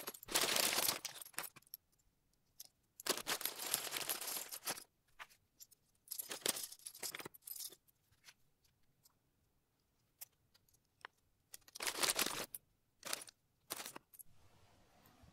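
Small plastic JEKCA building-block pieces clattering and rattling as they are sifted from a loose pile and handled, in several bursts of a second or two, with a few single clicks between.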